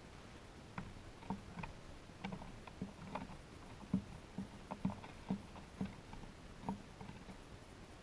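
Dark-eyed junco pecking at mixed seed on a wooden bird table: irregular taps of its bill on the seed and boards, about one or two a second.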